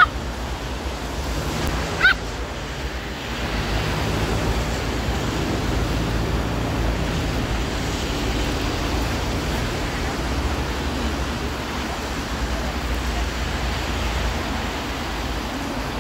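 Steady wash of street traffic on a wet road, with a low rumble of wind on the microphone. Two brief high-pitched sounds stand out, one right at the start and one about two seconds in.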